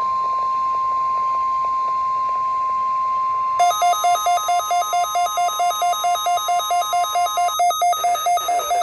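NOAA Weather Radio's steady warning alarm tone, the single high tone sent just before a warning is read. About three and a half seconds in, a rapid electronic alert beep joins it, about four beeps a second, and it keeps going after the steady tone stops near the end.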